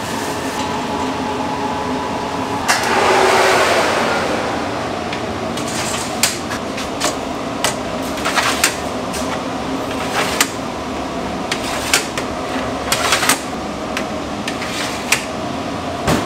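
Commercial kitchen noise: a steady hum of ventilation fans, a loud rushing noise about three seconds in, then scattered sharp clicks and clatters of utensils and kitchenware.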